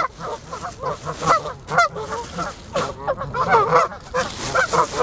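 A flock of Canada geese honking, many short overlapping calls several a second.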